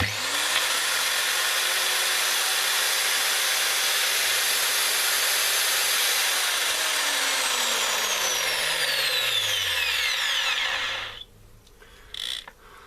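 Makita M0921 angle grinder switched on, running steadily at full speed and then switched off about six and a half seconds in, its whine falling as it spins down over several seconds. The freshly replaced gear pair runs without the extraneous gearbox noise it came in with.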